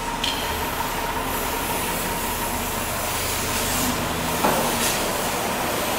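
A steady hiss with a faint, high, steady tone under it.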